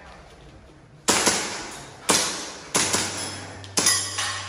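Gas airsoft pistol shots, about seven sharp cracks fired mostly as quick pairs (double-taps), each leaving a short ringing tail.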